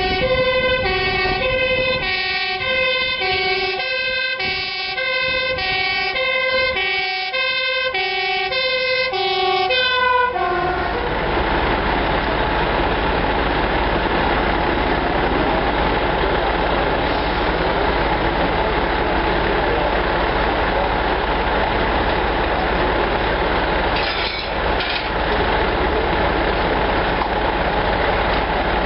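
A fire engine's two-tone siren switching between a high and a low note, each held for about half a second, for roughly the first ten seconds. It then breaks off into a loud, steady rumbling noise with a low hum underneath.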